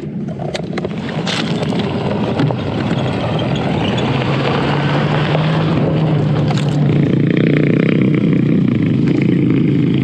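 BMW R1200GS Adventure's boxer-twin engine running while the bike is ridden on a rough trail: a steady engine hum under a rough rush of noise, growing louder through the second half.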